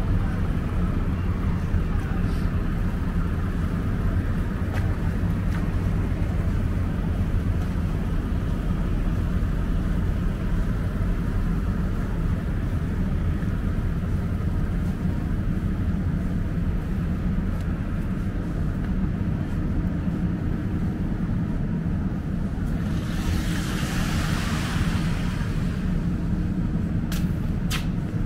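Steady low rumble of outdoor city street noise from traffic, with a hissing swell for a couple of seconds near the end.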